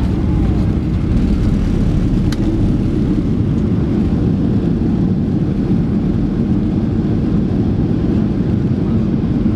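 Cabin noise of a Boeing 737-800 on its landing roll-out, heard from a window seat behind the wing: a loud, steady low rumble as the jet decelerates down the runway with its ground spoilers deployed.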